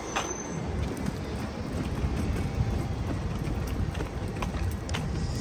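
Outdoor street ambience: a steady low rumble of traffic and wind on the microphone, with a few faint ticks scattered through it.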